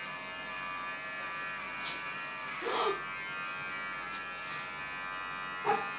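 Cordless electric hair trimmer running with a steady electric buzz while it cuts a man's short hair. A short vocal sound breaks in about three seconds in.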